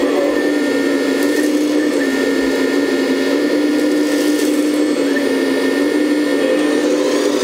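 Hydraulic pump of a 1/14-scale Lesu ET26L RC excavator running steadily, a loud electric whine whose pitch dips slightly a few times as the boom and bucket are worked.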